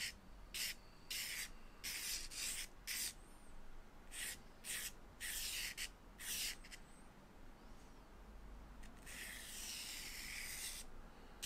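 A stick of soft charcoal drawn across drawing paper. About a dozen short strokes come in quick succession, then one long stroke about two-thirds of the way through.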